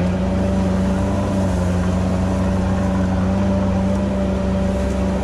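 Sherp ATV's diesel engine running at a steady speed under load as the machine drives over tall grass and brush, a constant hum that holds one pitch.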